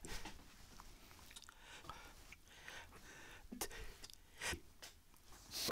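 Faint mouth clicks and breaths of a man pausing in speech, in a quiet small room; a louder breath comes about four and a half seconds in and another near the end.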